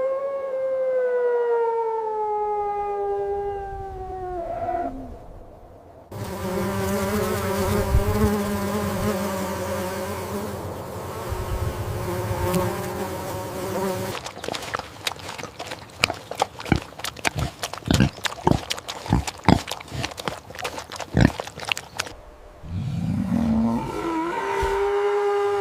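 A string of different animal sounds: a long pitched call that slowly falls, then a dense buzzing stretch, then a rapid run of sharp clicks, and another pitched call near the end.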